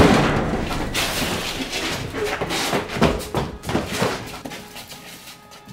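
Metal cabinet's double doors pulled open with a sudden loud bang, followed by several seconds of rattling and knocking that fades out.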